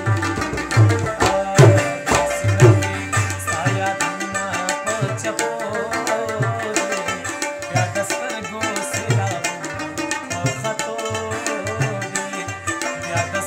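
Tabla played in a steady rhythm, with deep, booming strokes of the bass drum (bayan) under sharper strokes of the treble drum (dayan). This is the accompaniment to a Pashto ghazal.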